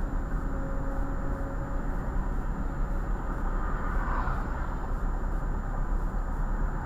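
Steady low rumble of vehicle engines in bumper-to-bumper freeway traffic, heard from inside a car's cabin on a dashcam, with a brief swell about four seconds in.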